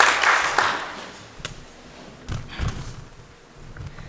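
Audience applause dying away within the first second, followed by a few scattered low thumps and knocks.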